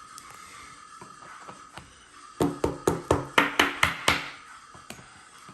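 A quick run of about nine sharp taps or knocks on a hard surface, about five a second, starting a little before halfway and lasting under two seconds, over a faint steady high tone.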